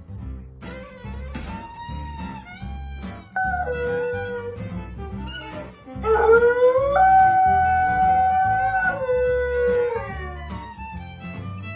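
A dog howling twice over background music with a steady beat. The second howl is the louder and longer: it rises, holds for about three seconds, then falls away.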